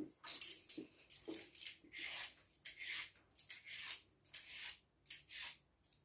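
Red Y-shaped vegetable peeler scraping strips of skin off a raw carrot in quick repeated strokes, about two a second.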